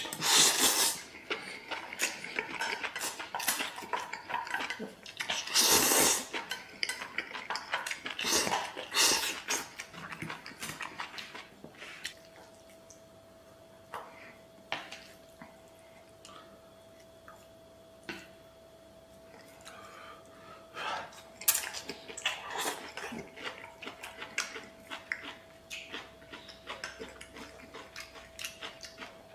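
Noodles slurped in loud noisy bursts, several times, with chopsticks clicking against a stainless steel bowl in between. In the quieter middle stretch a faint steady tone sounds under the clicks.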